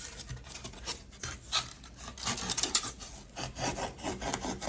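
Hand tool rasping back and forth as it cuts and squares off the edge of a frame piece, in a run of quick, repeated strokes.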